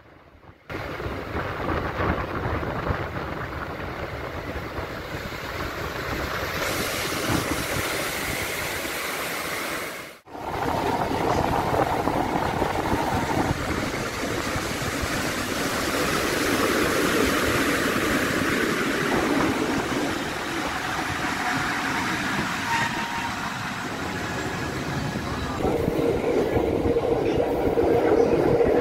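Bernina Express electric train of the Rhaetian Railway running, heard from an open carriage window: a steady rush of wheel and rail noise mixed with wind. The sound starts abruptly just under a second in, drops out for a moment about ten seconds in, and a steady hum joins it near the end.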